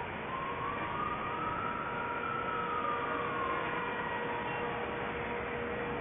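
A siren wailing slowly, one rise and fall of pitch lasting about four seconds, with the next rise starting near the end, over a steady hiss of city noise.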